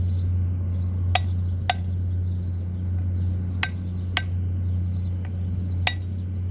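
Light metallic taps and clinks of hand tools on metal gearbox parts, about six short ringing strikes spread irregularly, over a steady low mechanical hum.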